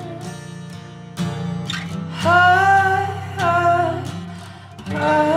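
Live acoustic song: an acoustic guitar playing under a man singing long, drawn-out notes, which come in about two seconds in and fade near the end before another held note begins.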